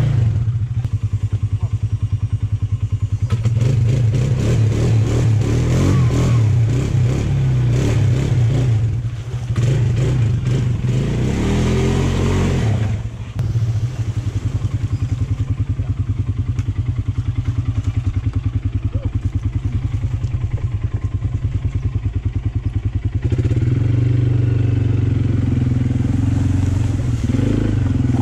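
Motorbike engine running steadily, with a rush of extra noise for several seconds in the first half and a change in the engine's pitch near the end.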